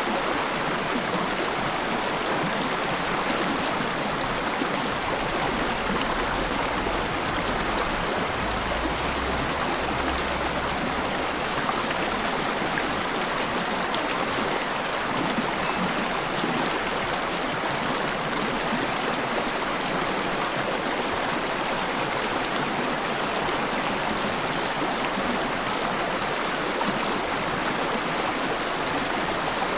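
Mountain valley stream rushing and splashing over rocks, a steady, unbroken water sound.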